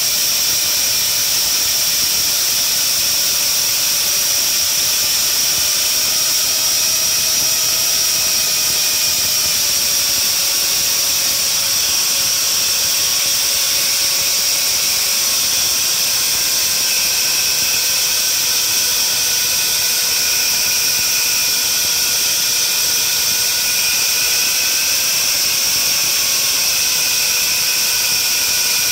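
Die grinder with a pink grinding wheel running at a steady high-pitched whine, lightly grinding a hardened steel tapered shaft that turns in a lathe on a final finishing pass. Fainter tones underneath wander slowly up and down in pitch.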